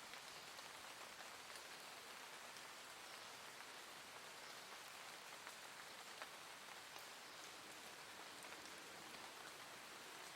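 Soft, gentle rain falling steadily: an even hiss with faint scattered drop ticks.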